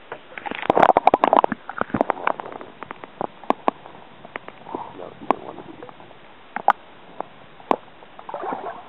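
Water splashing and bubbling as a fish is released into the sea: a burst of splashing about a second in, then scattered sharp clicks and pops.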